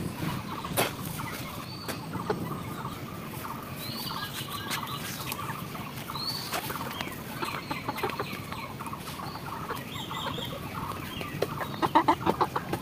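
Domestic chickens clucking, with a few short knocks and scrapes of a hoe digging into soil; the sounds get busier and loudest near the end.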